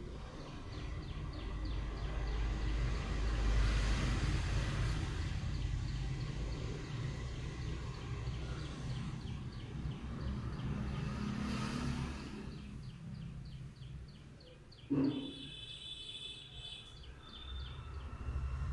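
Background ambience: a steady low rumble with a regular high ticking and faint chirps, and one short knock about fifteen seconds in.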